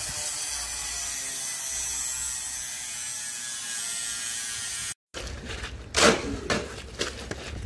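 A corded electric power tool running steadily with a high whir, held by a worker at the steel reinforcing mesh of a foundation slab. About five seconds in it cuts off, followed by a few loud scraping knocks of tools working wet concrete.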